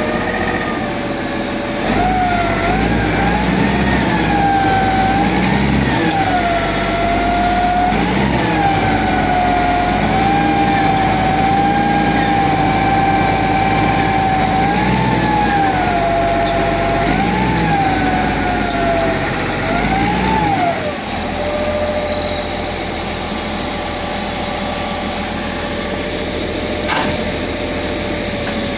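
Tractor-loader engine running under load, its pitch swelling up and down every couple of seconds. About 21 s in it drops to a steady idle, with one short knock near the end.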